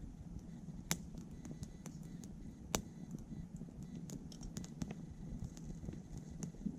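Wood burning in a small titanium wood stove, crackling: two loud pops about two seconds apart among scattered smaller snaps, over a steady low rumble.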